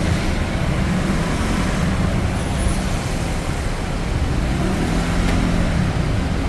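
Road traffic on a rain-wet city street: a steady hiss of rain and tyres over engine hum, with one vehicle's engine passing close from about four seconds in.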